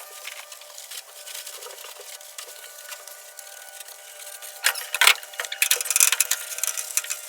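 Intermittent scraping and rubbing strokes of hand cleaning: a couple of short strokes around the middle, then a quicker run of them near the end, over a faint steady hum.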